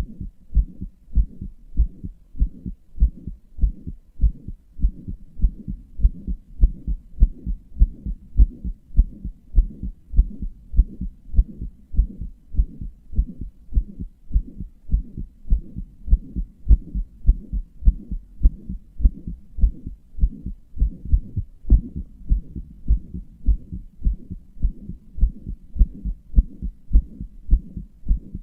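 Human heartbeat heard close up: a steady, quick run of low thumps. The owner calls it a weak, inefficient heart that murmurs and palpitates.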